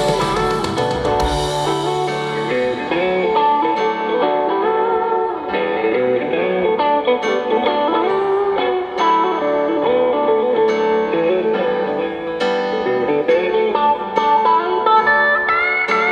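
Live band music led by a guitar playing a melody with bent, wavering notes. The bass and drums drop out about a second and a half in, leaving the guitar mostly on its own.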